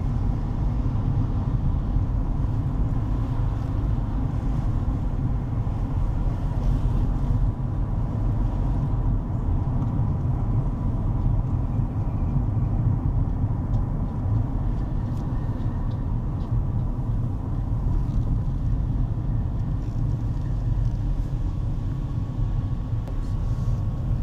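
Steady low road and engine rumble heard from inside a moving car's cabin.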